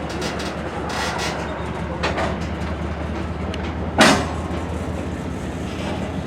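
Freight train rolling past: a steady low diesel engine drone under scattered wheel clicks on the rails, with one sharp clank about four seconds in.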